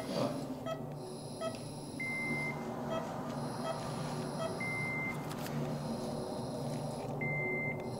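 Operating-room patient monitor beeping: short beeps come a little faster than one a second, and a longer, steadier beep sounds three times, over a low hum.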